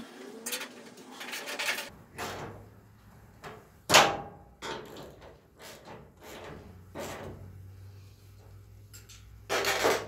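Hand tool clicking, knocking and scraping against the steel tailgate and its latch hardware while the latch bolts are adjusted: scattered clicks and knocks, the loudest about four seconds in, and a quick cluster near the end.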